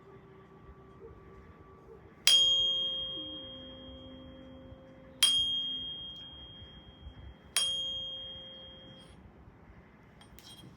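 A ringing metal tone struck three times, about two and a half seconds apart. Each strike is a sharp ping that rings with a steady pure pitch and fades slowly, typical of a tuning fork or a single-bar energy chime used for clearing before a reading.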